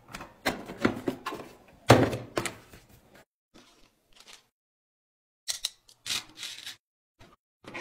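Hand tools and a hard plastic tool case knocking and clattering as tools are handled, with a heavy thunk about two seconds in. Near the end, a short scratchy rattle of small metal nails and plastic packaging.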